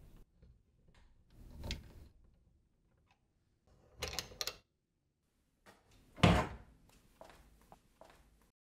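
Handling noise from a Dyson Airblade 9kJ hand dryer's main body being unfastened and lifted off its wall mounting bracket. There is a light knock, then a quick rattle of clicks about four seconds in. A loud clunk comes about six seconds in as the body comes off the bracket, followed by a few softer knocks.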